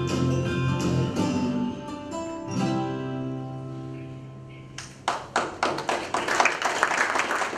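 Background music with plucked guitar and held chords, fading out. About five seconds in, an audience starts applauding.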